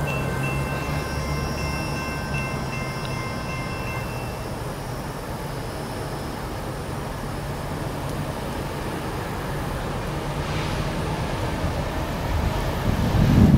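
A distant Nathan K3LA locomotive air horn sounds a held chord that stops about four seconds in. A steady low rumble of two GE C44-9W diesel locomotives approaching follows and slowly grows louder, with wind buffeting the microphone near the end.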